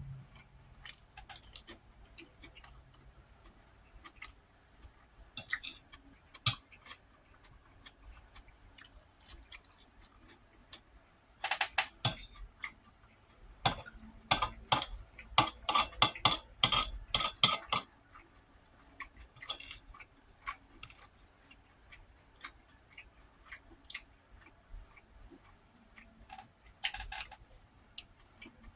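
Eating up close: a utensil clicking and scraping on a plate, with chewing. There are scattered small clicks, and a dense run of clinks and scrapes around the middle.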